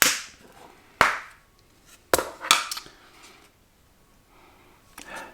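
Container of smoked crickets being opened by hand: a sharp snap right at the start, then more clicks and crackles about one, two and two and a half seconds in.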